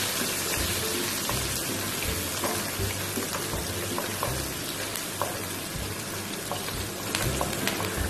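Chopped onions sizzling in hot oil in a frying pan, with a steady hiss. They are being stirred with a wooden spatula, and a few light clicks come through.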